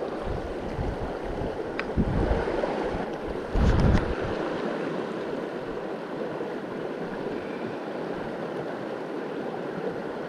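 River water rushing steadily over a shallow rocky bed. Two louder low bumps come about two seconds in and again near four seconds.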